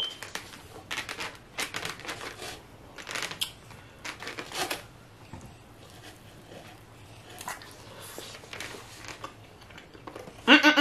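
Close-miked eating sounds: a plastic fork scooping rice and pork in a foam takeout container, then chewing with small wet clicks and crackles. The clicks come thickly in the first few seconds and more sparsely afterwards.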